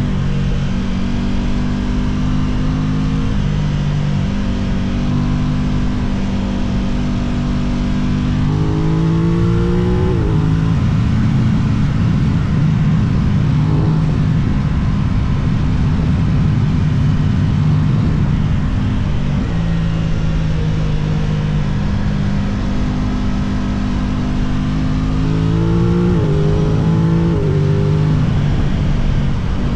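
Aprilia RS660 parallel-twin motorcycle engine heard from onboard, held at steady revs under wind rush. The revs climb in rising steps twice: about nine seconds in, and again near the end.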